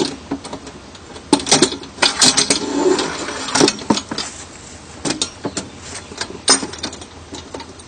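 Metal clanks and scraping as a chainsaw bar is slid into the clamps of a chainsaw mill's head: a string of irregular sharp knocks, with a short rasping scrape a little after two seconds in.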